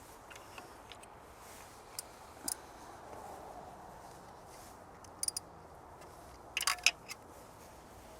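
A few sharp metallic clicks from a socket wrench and spark plug socket being worked on a spark plug to break it loose: single clicks, then three quick ones, then a louder cluster of clicks near the end.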